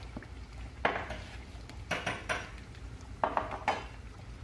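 Kitchen utensils and dishes clattering: several short, separate clinks and knocks, spread over a few seconds.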